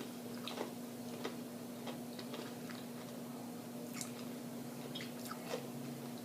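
Quiet chewing close to the microphone: scattered wet mouth clicks and smacks, a few a second at most, over a steady low hum.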